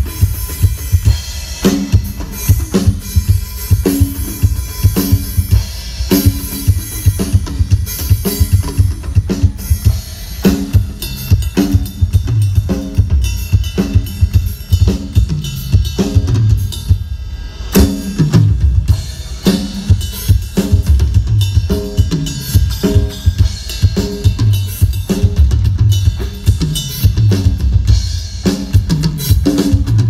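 Drum kit playing a steady groove through a large outdoor PA of TW Audio line-array loudspeakers and subwoofers during a drum sound check. The kick drum is strong in the low end, and the high end drops out briefly about halfway through.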